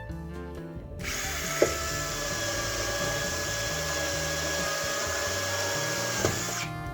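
A handheld power tool running steadily for about five seconds, switching on about a second in and stopping shortly before the end, with a click at each switch. Background music plays underneath.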